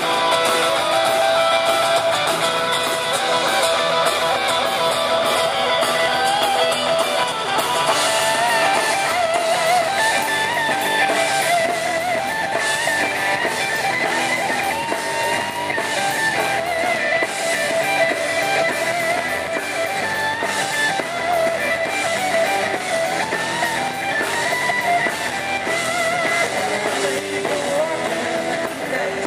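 Live rock band playing an instrumental passage without vocals: electric guitars strumming and playing a melodic line over a steady beat.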